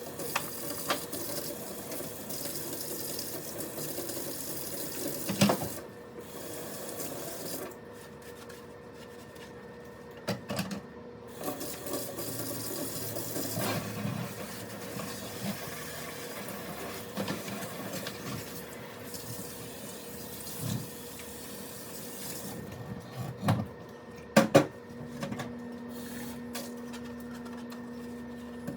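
Kitchen tap running into a sink while dishes are rinsed and cleaned, with scattered clinks and knocks of dishes and pans. A few louder knocks come about five seconds in and near the end, over a steady low hum.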